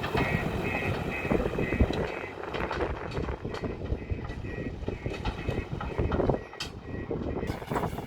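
JCB loader running with a rumbling engine and irregular clanks and knocks from the machine at work. A high beep pulses about twice a second for the first two seconds and briefly again near the end.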